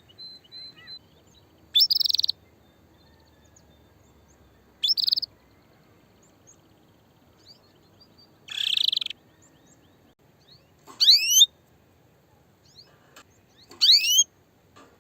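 Female canary giving its mating call: short chirps of about half a second, spaced a few seconds apart. One near the middle is harsher, and the last two are quick rising sweeps. This is the call of a hen ready to breed, calling males to mate.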